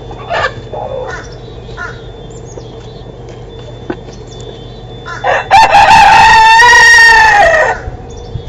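A rooster crowing once, loud and close: one long call of about two and a half seconds, starting about five seconds in. A few short chicken calls come before it.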